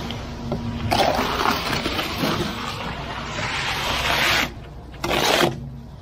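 Wet concrete slurry rushing down the steel chute of a ready-mix concrete truck as the load runs out, over the truck's running engine. It comes in one long rush that cuts off sharply after about three and a half seconds, then a short second rush about half a second later.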